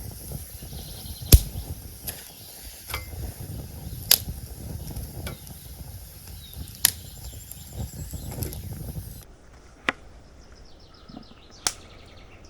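Campfire crackling: a low steady rush from the fire with sharp, irregular pops, the loudest about a second and a half, four and seven seconds in. About nine seconds in it gives way to a quieter background with a few faint clicks.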